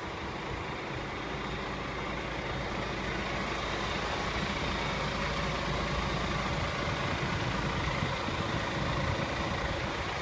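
Truck diesel engine idling steadily, a DAF CF 8x2 rigid heard close alongside, growing slightly louder over the first few seconds.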